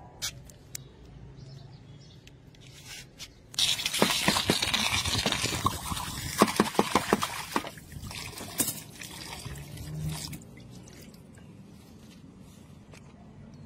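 Red-hot metal casting and its mold quenched with water: a loud steaming hiss and sizzle begins about three and a half seconds in, with a run of sharp crackles and pops in the middle, and dies away about ten seconds in.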